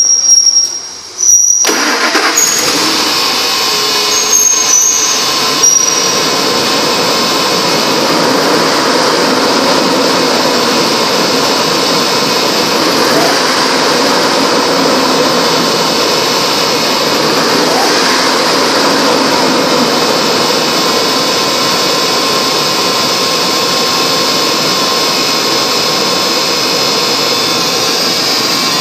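Ford 5.4-litre Triton V8 of a 2001 F-150 starting, catching about a second and a half in, then running steadily.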